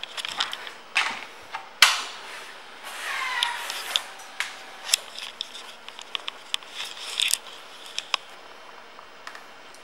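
Scattered sharp clicks and knocks from something being handled close by, the loudest about two seconds in, with a short squeak falling in pitch around three seconds in and a run of quicker clicks after it.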